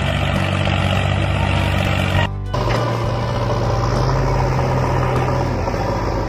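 A steady engine-like running sound, broken off about two seconds in and resuming at a slightly different pitch.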